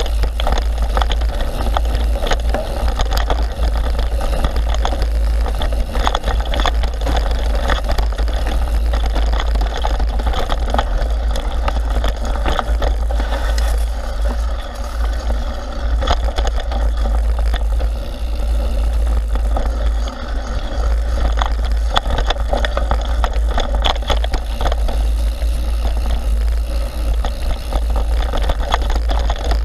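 Mountain bike descending a dirt singletrack, heard from an action camera on the moving bike: a heavy steady rumble of wind buffeting the microphone and tyres on the trail, with frequent short clicks and rattles from the bike jolting over roots and stones. It drops a little, briefly, about halfway through.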